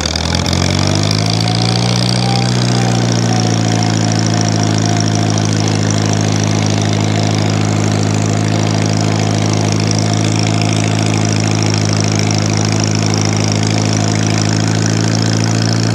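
1950 Farmall Cub's four-cylinder flathead engine running as the tractor is driven, rising in pitch over the first couple of seconds, then holding a steady speed.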